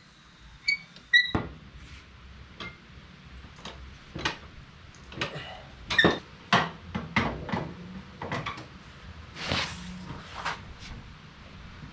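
Metal snow plow mounting parts being handled and fitted to an ATV: scattered clinks and knocks, a few ringing briefly, with a short scrape late on.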